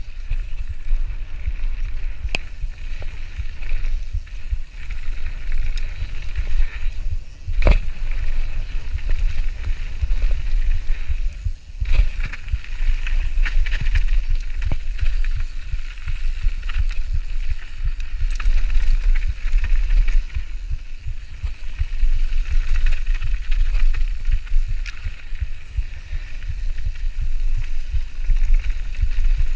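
Mountain bike riding fast down a gravel trail, heard from a camera on the rider: steady wind rumble on the microphone over the hiss and crunch of tyres on gravel. A few sharp knocks from the bike over bumps, the loudest about eight seconds in and another about twelve seconds in.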